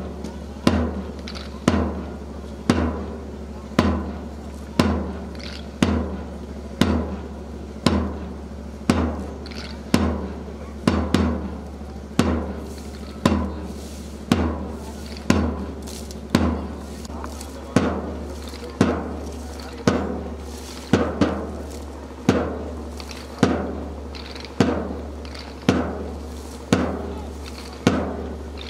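A drum beating a steady march time, about three beats every two seconds, each beat ringing briefly, over a steady low hum.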